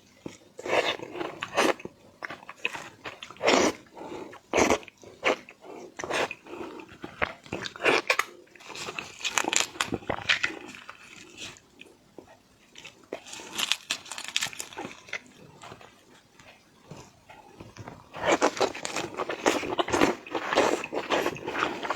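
Close-up eating of large prawns: shells cracking and being pulled apart, with crunching and chewing in irregular bursts. The sounds are densest and loudest near the end.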